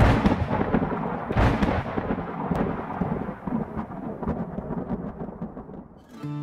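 Thunder sound effect: a sharp crack right at the start and a second about a second and a half in, then a long rolling rumble that fades out near the end.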